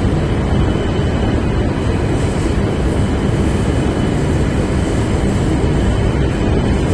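Tohoku Shinkansen train pulling in along the platform: a loud, steady rolling rumble with a faint high whine over it.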